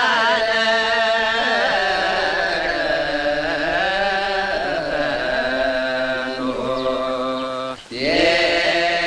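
Sung chanting with long, slowly wavering held notes. It breaks off briefly near the end and resumes straight away.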